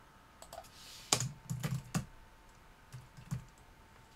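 Typing on a computer keyboard: a few separate keystrokes, a quick run of them about a second in, and a couple more near the end.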